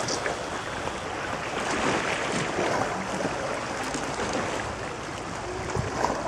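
Steady rushing outdoor background noise, even and unbroken.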